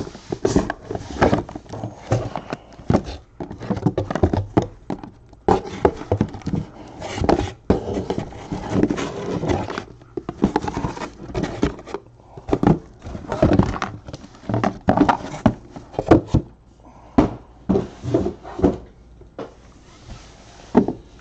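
Shrink-wrapped cardboard hobby boxes being slid out of a corrugated cardboard case and set down in a stack: irregular knocks, scrapes and rustles of cardboard and plastic wrap, many a second.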